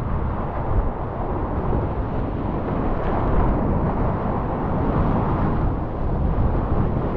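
Flood-stage alpine river whitewater rushing steadily, heard close up from a kayak in the middle of the rapids, heaviest in the low range.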